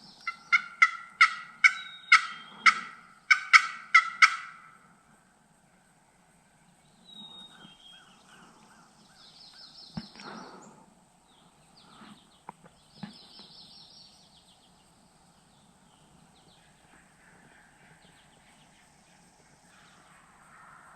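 A loud series of about ten sharp turkey yelps, evenly spaced, over the first four seconds, then fainter high bird chirps and a few light knocks.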